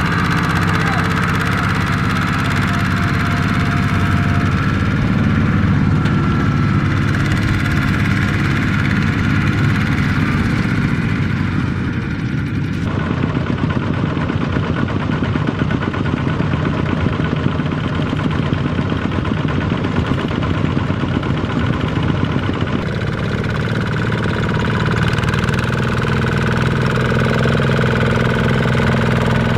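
Single-cylinder Kubota diesel engine of a two-wheel walking tractor running steadily under load as it pulls a loaded trailer across the field. The sound changes abruptly twice as the view switches between tractors.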